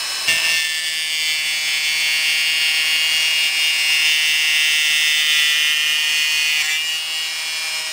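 Dremel rotary tool with a small, worn-down cutting wheel, set to a medium-low speed of about 4, cutting a carbon fibre tube that is rotated against the wheel under even pressure. It makes a steady, high-pitched whine.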